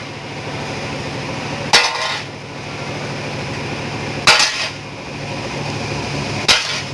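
Three hammer blows on a sheet-steel body panel, a couple of seconds apart, each ringing briefly, over a steady motor hum.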